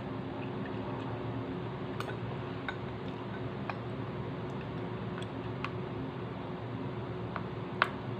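Close-up eating sounds: chewing chicken feet in sauce with scattered small clicks, and metal chopsticks tapping the food containers, the sharpest tap near the end. A steady hiss and low hum run underneath.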